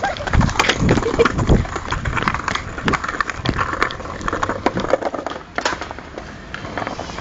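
Skateboard rolling slowly over paving tiles, its wheels rumbling with irregular clicks and rattles at the joints; a few short voice sounds in the first second or so.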